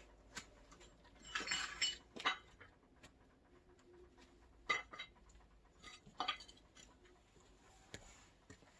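Scattered clinks and knocks of hard objects being handled, a short cluster near the start and then single sharp ones every second or two.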